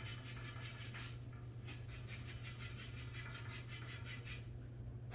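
Rapid, even scraping strokes of chalk being rubbed onto a pool cue tip, about five a second, stopping shortly before the end, over a steady low electrical hum.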